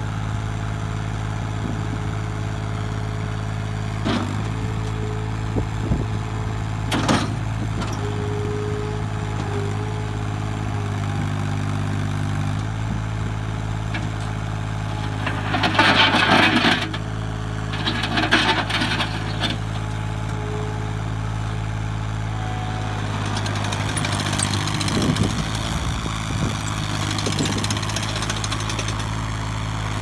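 Terex ASV PT30 compact track loader's diesel engine running steadily while the machine drives over dirt, with a few sharp clanks and, about halfway through, two louder bursts of clatter.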